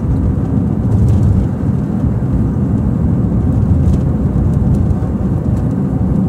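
Car driving at speed on an asphalt highway, heard from inside the cabin: a steady low rumble of tyres, engine and wind.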